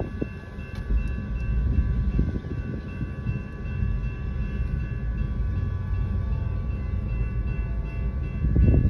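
Freight train rolling through a grade crossing, heard from inside a car: a continuous low rumble of rail cars and wheels on the track, with steady high ringing tones above it, getting louder near the end.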